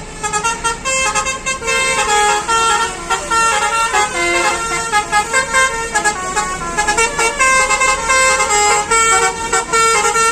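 Basuri "telolet" multi-tone bus horn playing a rapid tune of short, changing notes, continuous and loud.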